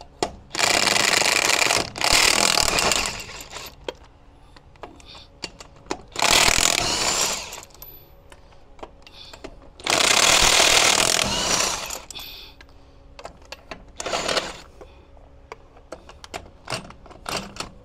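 Impact wrench hammering loose a truck wheel's lug nuts in about five bursts of one to two seconds, with short pauses between; the nuts are very tight.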